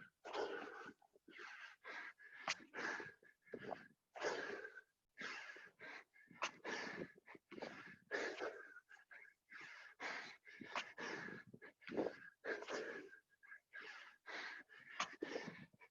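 Heavy, fast breathing of people exerting themselves doing burpees: hard panting breaths in quick succession, roughly one to two a second.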